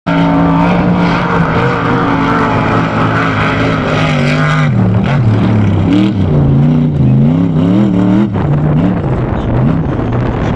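Formula offroad buggy's engine running hard at steady high revs, then revving up and down about once a second from around five seconds in as the buggy works across the mud.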